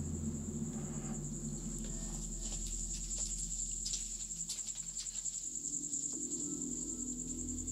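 Crickets trilling in a steady, high-pitched, pulsing chorus. Under it runs a low droning background music that shifts pitch about five seconds in, with a few faint clicks of footsteps on rubble.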